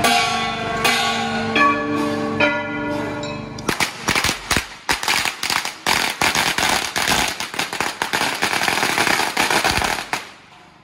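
A bronze gong is struck about four times, each stroke ringing on. Then, from about four seconds in, a long string of firecrackers goes off in rapid, dense cracks that thin out and fade near the end.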